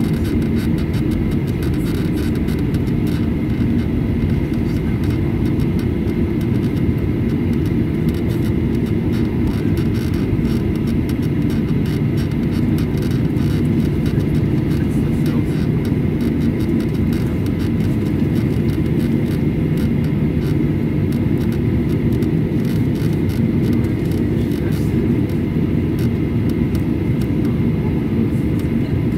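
Cabin noise inside a Boeing 737-800 taxiing, heard from a seat over the wing: the steady low rumble of its CFM56-7B turbofan engines at taxi power, with a faint steady high tone above it.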